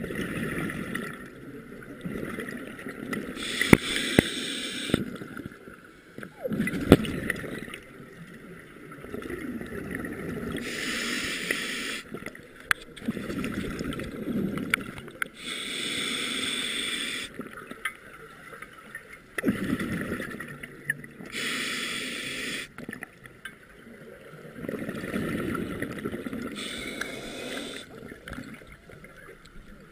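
A scuba diver breathing through an open-circuit regulator, heard underwater. Each inhalation is a hiss and each exhalation a bubbling gurgle, the cycle repeating about every five to six seconds. Two sharp clicks come a few seconds apart near the start.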